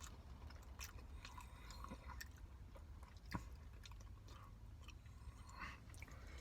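Faint chewing of a mouthful of chicken biryani rice, with scattered small clicks and one slightly sharper click about three seconds in.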